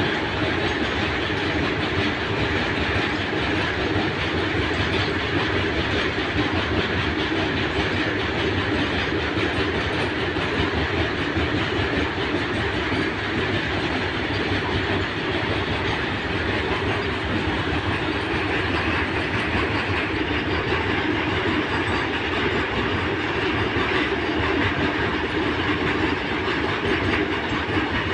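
Loaded open freight wagons of a goods train rolling past, their wheels making a steady rumble and clatter on the rails.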